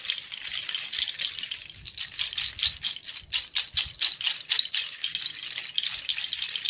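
Handmade bone rattle, fox bones and other small bones hung on cords beneath a fox skull, shaken so the bones clatter against each other. A dry, bright clatter with a run of separate sharp clicks about three to four seconds in.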